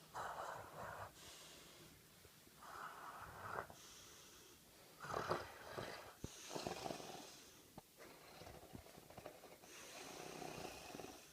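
A sleeping dog snoring with a chew toy in its mouth: about six rasping snores, each roughly a second long and coming every couple of seconds, the loudest about five seconds in.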